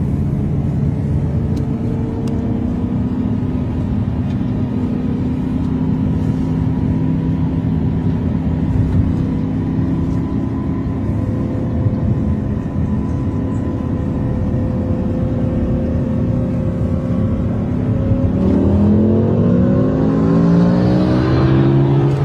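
Sports car engines running at a steady cruise with an even drone, then in the last few seconds wide-open acceleration, the pitch rising and dropping back through several quick gear changes.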